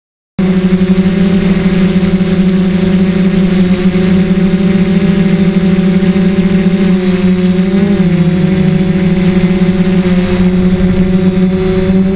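Quadcopter's electric motors and propellers running steadily at climbing power, heard close up from the onboard camera: a loud hum with a high whine over it. It cuts in abruptly about half a second in, and the pitch wavers briefly a little past halfway.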